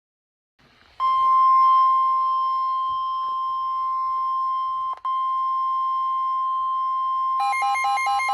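NOAA Weather Radio warning alarm tone: a single loud steady tone near 1050 Hz starting about a second in, with a brief dropout near five seconds. Near the end a rapidly pulsing electronic alarm beep joins it.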